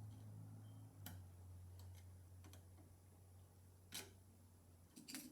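Faint sharp clicks of hand tools on wiring, three of them a second or more apart, over a low steady hum that stops near the end.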